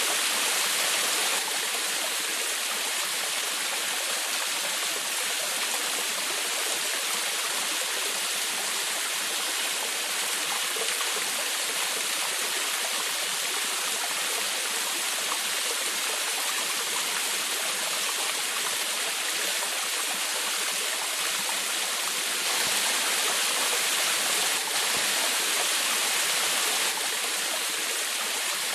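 Small forest waterfall splashing into a stream, a steady hiss and patter of falling water that swells a little for a few seconds near the end.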